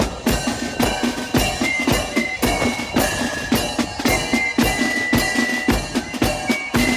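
Marching band drums, snare and bass drum, beating a steady march rhythm of about three strokes a second, with a thin high melody line stepping between notes above them.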